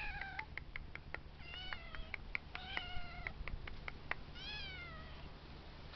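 Several 14-week-old kittens meowing in turn, short high mews and longer meows overlapping one another. Near the end one kitten gives a longer meow that falls in pitch.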